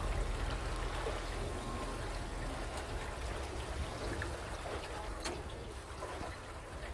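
Water lapping and trickling against the hull of a slowly moving boat, over a steady low rumble, with a few faint ticks.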